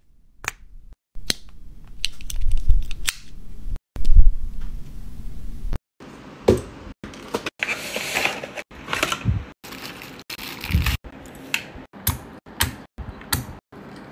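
Close-miked handling of small plastic and cardboard items: sharp clicks and taps, a heavy knock about four seconds in, and cardboard sliding and rustling as a box is drawn from its sleeve about eight seconds in, the sounds stopping abruptly between short clips. Near the end come the clicks of a keycap being fitted to a keypad.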